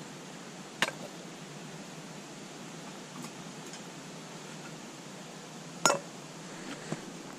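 Stainless steel camping mugs and kettle clinking as they are handled to make coffee: two sharp metallic clinks, one about a second in and a louder one near the end, over a steady faint hiss.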